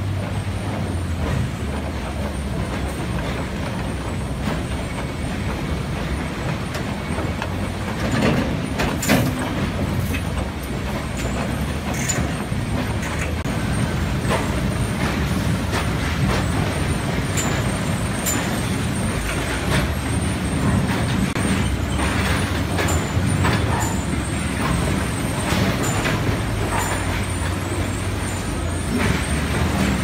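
Sawmill log-handling machinery running: a steady, loud mechanical din from the log chain conveyor and yard equipment, with scattered sharp clanks and knocks.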